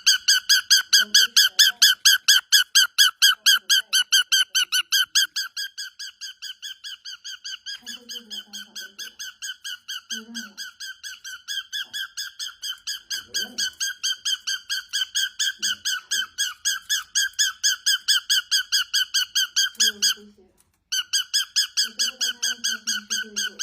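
A cockatiel calling in a long, fast, even string of squeaky chirps, all at one pitch, several a second. It falls quieter for a few seconds and breaks off for about a second near the end before starting again.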